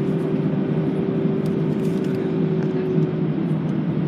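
Airbus A320 cabin noise on the ground before take-off: a steady low hum under a rushing-air haze, with a steady higher tone that fades out about three seconds in.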